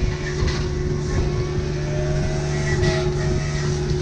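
Kubota U55-4 mini excavator's diesel engine running steadily, with a thin whine that rises slightly in pitch.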